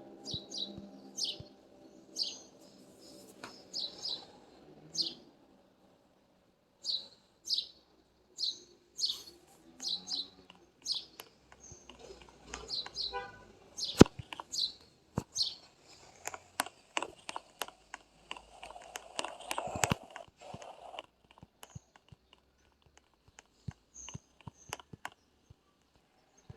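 A bird chirping in short, repeated chirps, with a run of sharp clicks and knocks in the middle, the loudest about fourteen seconds in.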